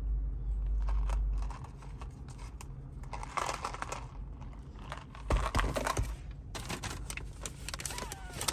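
Handling noises: clicks and knocks of a plastic iced-coffee cup being moved, then the crinkling and rustling of a paper donut bag being opened near the end. A low rumble fills the first second and a half.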